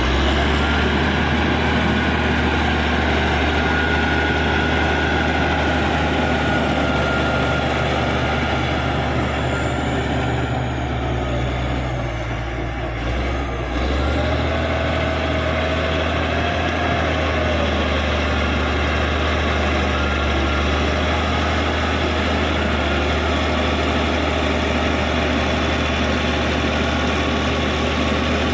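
Caterpillar D6G bulldozer's diesel engine running steadily while the dozer works soil, easing briefly about halfway through before picking back up. Faint high squeals rise now and then above the engine.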